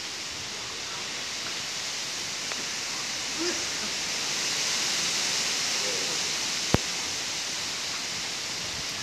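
Storm wind ahead of a cyclone, rushing steadily through palm fronds and trees as a broad hiss that swells a little toward the middle. A single sharp click comes about two-thirds of the way through.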